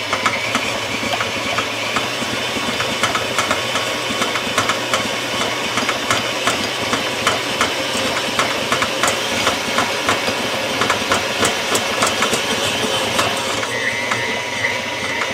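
KitchenAid stand mixer running at medium speed, its motor whining steadily while the flat beater churns a stiff bread dough in the steel bowl, with a regular knocking as the beater and dough go round.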